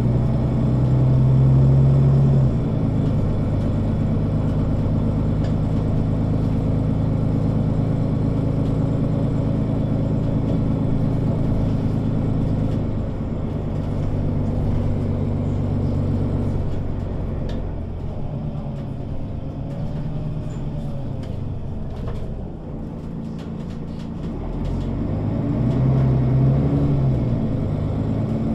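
Mercedes-Benz O 530 Citaro Facelift city bus's diesel engine running as the bus drives. The engine note holds steady at first, eases off and gets quieter about two-thirds of the way through, then rises again near the end.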